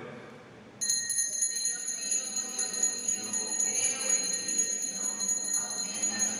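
Altar bells, a cluster of small Sanctus bells, shaken in a continuous bright jingling ring that starts suddenly about a second in. They mark the elevation of the host at the consecration.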